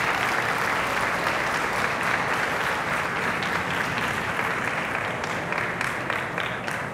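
Audience applauding, a dense patter of many hands clapping that eases off slightly near the end.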